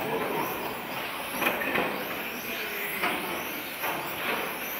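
Several 1/10 electric touring cars with 17.5-turn brushless motors whining around the track, their pitch rising and falling as they speed up and slow down. There are a few short knocks near the middle.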